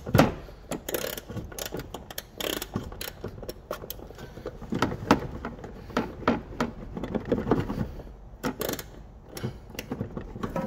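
Steel socket on an extension bar twisted back and forth over a rusty nut on a rear shock absorber mounting, giving irregular metallic clicks and scrapes as it grinds rust off the top of the nut.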